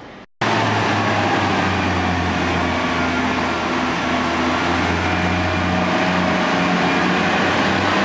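A Class 142 Pacer diesel multiple unit drawing into the platform, its underfloor diesel engine giving a steady drone over wheel and rail noise. The sound cuts in abruptly just under half a second in, after a brief gap.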